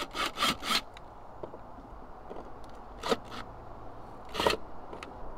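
Cordless drill-driver backing out the screws of a stainless courtesy light in short rasping bursts: four quick ones in the first second, then two more about 3 and 4.5 seconds in.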